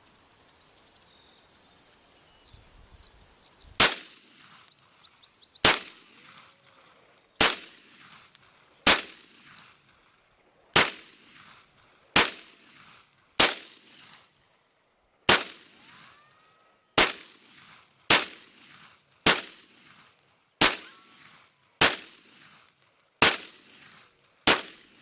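Glock Model 40 10mm pistol firing fifteen rounds of .40 S&W handloads, one shot every one to two seconds, each with a short echo. The first shot comes about four seconds in, after a few light handling clicks.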